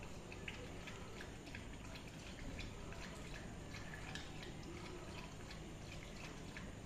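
Beagle lapping water from a small bowl: faint, quick wet laps, several a second and unevenly spaced.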